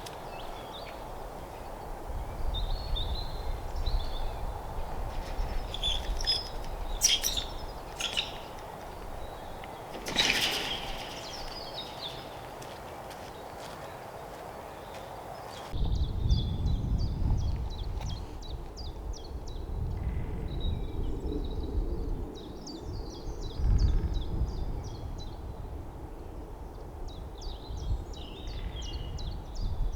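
Small songbirds chirping and trilling over a low rumbling background that swells and fades. The background changes abruptly about halfway through.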